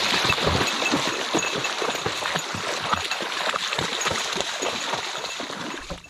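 Footsteps splashing and sloshing through shallow water, with dry alder brush and grass rustling and scraping along the walker's body, in an irregular stream of small splashes and crackles.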